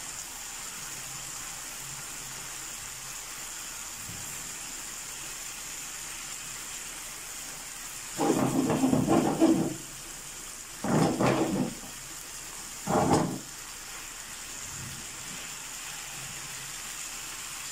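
Karahi masala sizzling steadily in a frying pan with skewered chicken tikka pieces set in it. Three louder sounds come one after another between about eight and thirteen seconds in.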